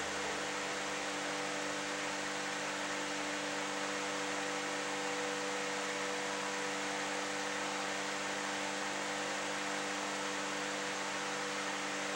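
Steady hiss with a low, even hum and no distinct events: room tone, or recorder and electrical noise.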